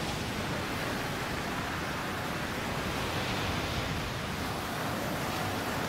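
Ocean surf breaking and churning over the shore, a steady rush of water noise.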